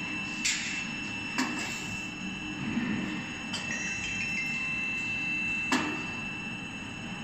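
CNC roll bending machine running as it rolls an aluminium profile into an elliptical curve: a steady high whine from the drive over a low hum, with four sharp clicks from the strip and rollers.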